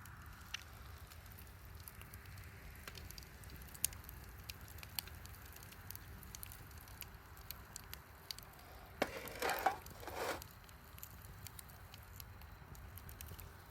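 Wood bonfire crackling, with scattered sharp pops over a low steady background. About nine seconds in, a louder rushing burst lasts roughly a second and a half.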